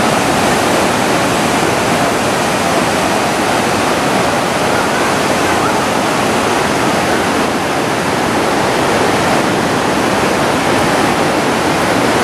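A river in full flood rushing through rapids: a loud, steady rush of churning whitewater.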